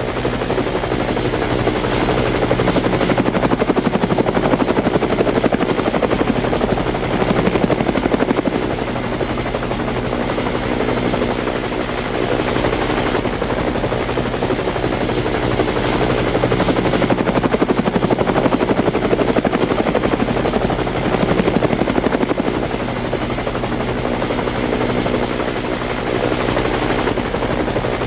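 Helicopter running steadily, its rotor blades chopping in a fast even beat over a steady high whine, swelling and easing a little in loudness.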